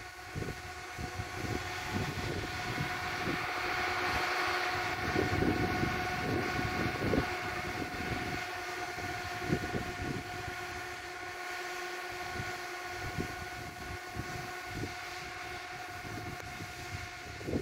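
Lada Niva 4x4's engine held at steady revs with a constant whine as it ploughs through deep snow, growing louder as it comes near around the middle, then easing as it draws away.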